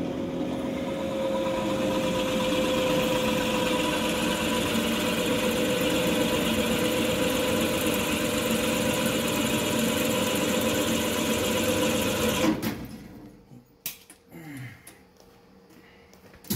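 Drill press running, its bit cutting a balancing hole into a steel crankshaft counterweight to take weight off the crank. The steady drilling stops about three-quarters of the way through, and a few light knocks and clicks follow.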